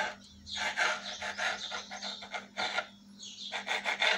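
Kitchen knife scraping and cutting through thin rolled dough against a countertop, in a run of short, irregular scraping strokes, with a faint steady hum underneath.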